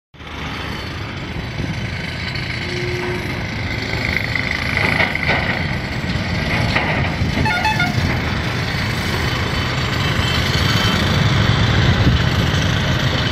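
Steady road traffic: engines and tyres of passing vehicles, with a few short horn toots about two thirds of the way through.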